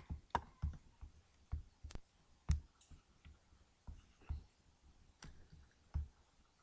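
Irregular computer mouse clicks, about a dozen short clicks each with a light thud, picked up by a nearby desk microphone.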